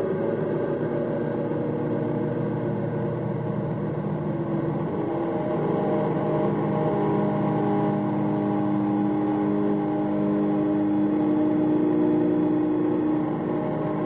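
A steady ambient drone of several held low and middle tones layered together, with no beat. The held tones shift a little partway through.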